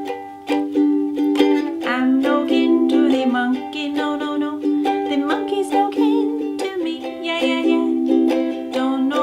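Ukulele strummed in a steady rhythm, with a woman's voice coming in to sing along about two seconds in.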